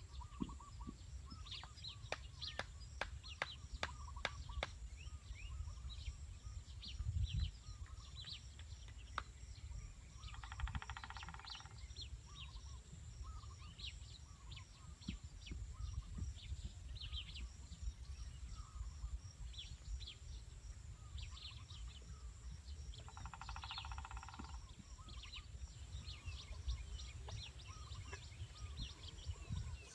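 Birds chirping over a steady high-pitched whine and a low rumble. A buzzing trill call comes twice, about 13 seconds apart, and a run of sharp clicks comes in the first few seconds.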